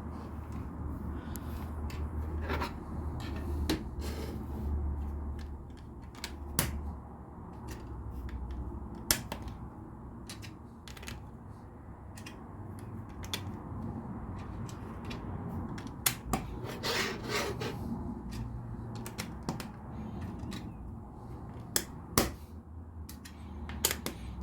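Plastic LEGO pieces clicking and clattering as they are handled and pressed into place on the build, with irregular small clicks and a few louder snaps.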